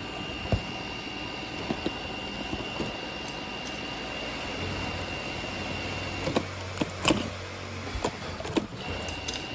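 Robot vacuum running: a steady motor whine over a hiss of suction, with scattered clicks and knocks. A low hum comes in about halfway through.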